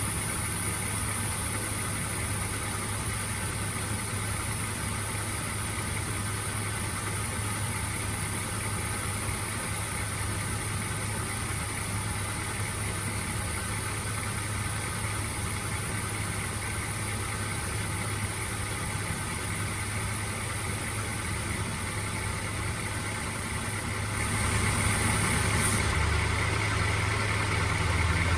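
Engine idling steadily with a continuous high hiss over it. A few seconds before the end the hiss changes and a higher tone comes up.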